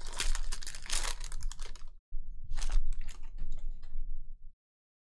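Foil wrapper of a trading card pack crinkling and tearing as it is ripped open, then the cards clicking and sliding against each other as they are pulled out and fanned, with a brief break about two seconds in.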